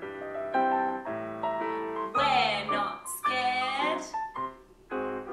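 Solo piano ballet-class music playing through a series of evenly paced notes. A woman's voice comes in briefly over it about two seconds in.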